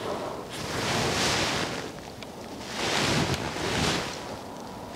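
Rushing air noise on a clip-on microphone, swelling twice for a second or so each time and easing off between.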